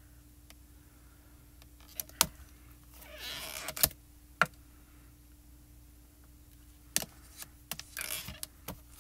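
Hands handling clear plastic stamps and an acrylic stamp-positioning tool: a few sharp plastic clicks and taps, the loudest near four seconds, with short rustles of handling. A faint steady hum runs underneath.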